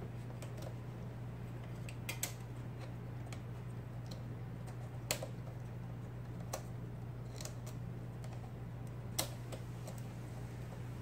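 IBM Selectric golf-ball typewriter being test-typed, a handful of single sharp clacks spaced a second or more apart, the strongest about five and nine seconds in. A steady low hum runs underneath.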